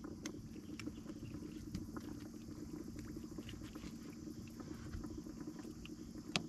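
Faint scattered clicks and ticks of a spinning reel being cranked as a small crappie is brought up to the boat, over a steady low hum. One sharper click comes near the end.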